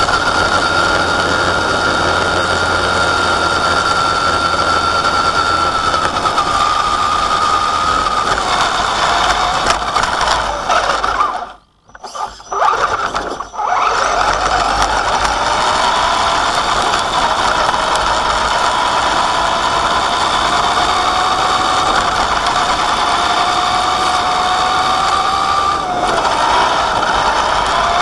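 Axial Wraith RC truck's electric motor and two-speed gearbox, set in high, whining as it drives over dirt and grass, the pitch drifting slowly with speed. The sound drops away for about two seconds near the middle, then picks up again.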